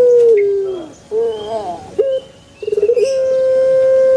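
Puter pelung dove cooing: a long held coo that dips in pitch and fades about a second in, a few short wavering notes, then a stuttering start into another long held coo near the end.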